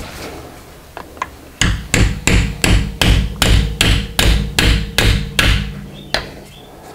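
Hammer striking a tool set against the edge of the leaking rear differential pinion seal on a Dodge Sprinter to drive it out of the housing. A couple of light taps come first, then a steady run of about a dozen blows, roughly three a second.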